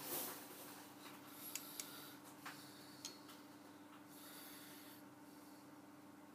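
Quiet handling of a telescoping gauge and outside micrometer, used to measure a bore: a short rustle, then four light metallic clicks over a faint steady hum.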